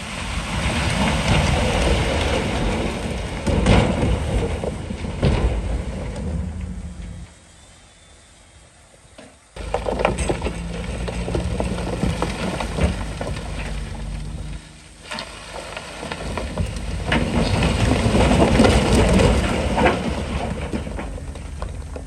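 Rock and stone rumbling and clattering as it is poured and pushed, with a heavy diesel engine running under it. It falls to a lull after about seven seconds and comes back suddenly about ten seconds in.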